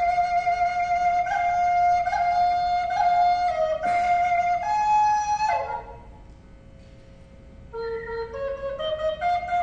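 Wooden flute played solo in a slow melody: a long held note with small ornaments, a falling slide about five and a half seconds in, a pause of about two seconds, then a phrase stepping upward near the end.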